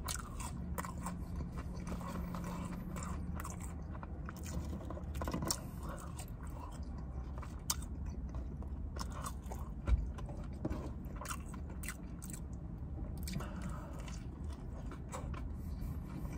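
Close-miked chewing and mouth sounds of a person eating McDonald's chicken nuggets and fries: many short wet smacks and clicks over a steady low hum.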